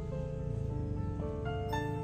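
Gentle instrumental background music: a slow melody of single notes that ring on over a low drone.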